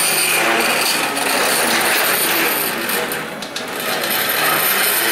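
Stepper motor on a CNC plasma table's X axis driving the torch carriage slowly along its rack, making a real buzzing, rough mechanical noise with a brief dip about three and a half seconds in. The motor is noisy and a little jerky at low speed, which the owner thinks could be the stepper motor, its driver, a design limit or the software.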